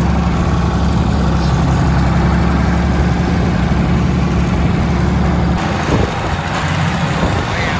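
Farm tractor engine running steadily as the tractor is driven over gravel. About five and a half seconds in, the steady engine note changes abruptly to a rougher one.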